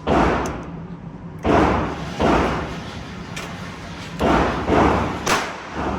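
Gunshots on a shooting range, about seven shots fired at an irregular pace, each followed by a short echoing tail.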